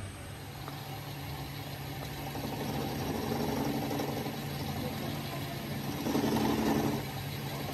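An engine idling steadily, its hum swelling louder about six seconds in for a second before settling back.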